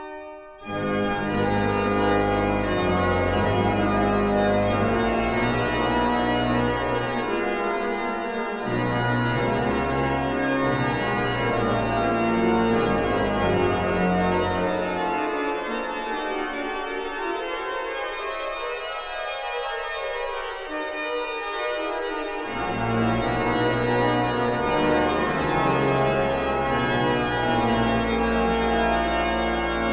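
1727 Müller pipe organ playing a fugato in several voices, manuals and pedals together. After a short break about half a second in, the music resumes; the deep pedal bass drops out for several seconds around the middle and then comes back.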